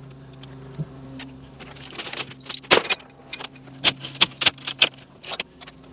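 Steel load chains clanking and rattling in irregular clusters, busiest in the second half, as a load is chained down on a trailer. An engine idles steadily underneath.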